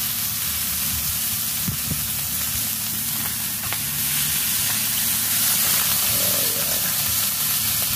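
Bacon rashers sizzling in a griddle pan on a portable gas camping stove, a steady frying hiss.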